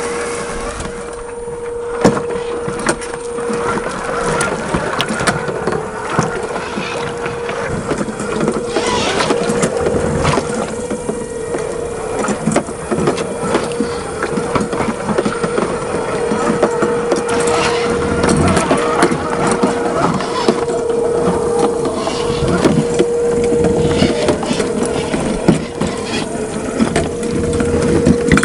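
Tamiya CC-01 radio-controlled car's 55-turn brushed electric motor and gearbox running with a steady whine, over a dense crackle of small clicks.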